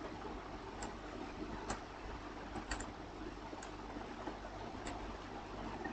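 Faint, irregular computer keyboard key clicks, about six in all, over a steady low background hiss.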